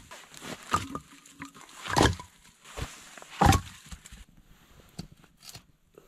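Packed snow crunching: three loud crunches about a second apart, with softer crunches between them, then a few quiet scuffs and clicks.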